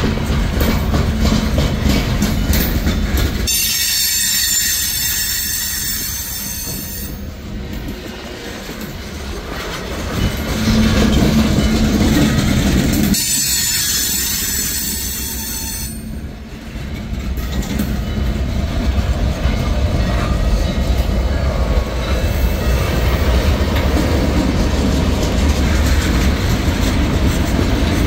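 Freight train boxcars and tank cars rolling past on steel rails with a steady low rumble of wheels. Twice, starting about three and a half seconds in and again about thirteen seconds in, a high-pitched wheel squeal rings out for about three seconds.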